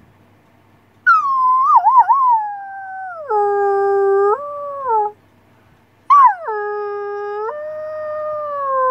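A person imitating a wolf howl through hands cupped around the mouth: two long howls, each starting high and dropping in steps to a lower held note. The first wavers near its start, and the second runs on at the end.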